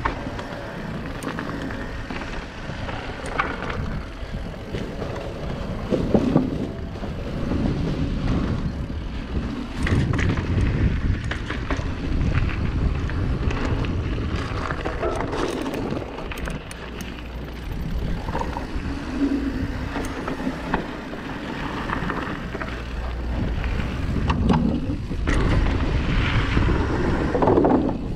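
Wind rushing over an action camera's microphone at downhill speed, over the rumble of a YT Capra Uncaged 9 mountain bike's tyres on dirt, loose stones and wooden boards, with the bike's chain and frame rattling and knocking over the bumps.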